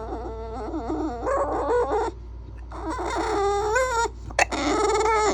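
Bulldog puppy 'talking': long whining, howl-like calls that bend up and down in pitch, in three drawn-out bouts with short gaps between.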